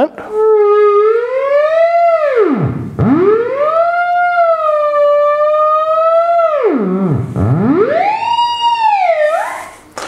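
Theremin playing one gliding tone rich in overtones: it climbs, plunges to a very low pitch about three seconds in, climbs back and wavers around a middle pitch, plunges again about seven seconds in, then rises and fades near the end.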